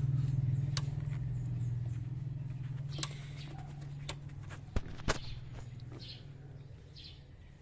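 A steady low mechanical hum that slowly fades away, with a few sharp clicks, two close together about five seconds in, and faint bird chirps near the end.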